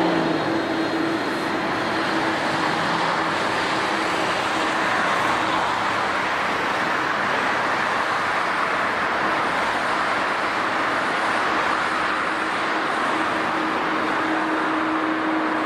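Airliner jet engines running at steady power, an even rushing noise with a low steady hum running through it.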